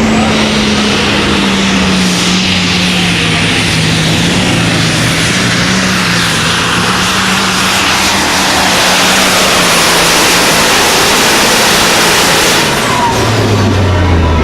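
Light super stock pulling tractor's turbocharged diesel engine running at full power under load during a pull, its pitch sagging slightly as it works, with a thin turbo whine on top. Near the end the sound drops suddenly to a lower engine note.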